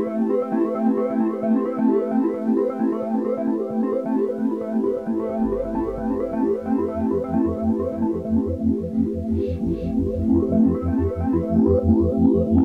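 Background music: an electronic keyboard tune of quick repeated notes, with a pulsing bass line coming in about halfway through.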